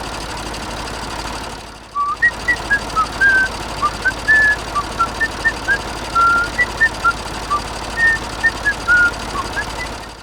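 A whistled tune of quick, short notes jumping up and down in pitch, starting about two seconds in. It plays over a steady background hum.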